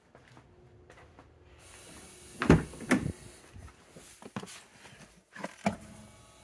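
Car door opened with two loud clunks, then a few softer knocks and rustling as someone gets into the driver's seat.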